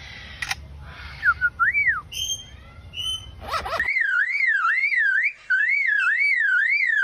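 Lyrebird mimicking other sounds: a few whistled glides and short chirps, then from about four seconds in a loud warbling whistle that swings up and down about three times a second, with one brief break.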